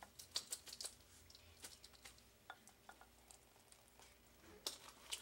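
Faint scattered clicks and light taps as hot water is poured from a small saucepan into a glass measuring cup, several in the first second and two more near the end.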